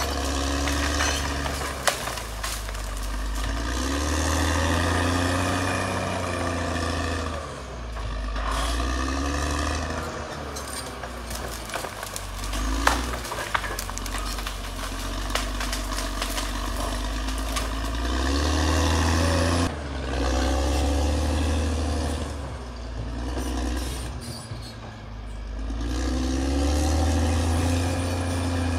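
Caterpillar D6R XL bulldozer's diesel engine working, its pitch and loudness rising and falling every few seconds as it revs under load, with scattered clicks and knocks.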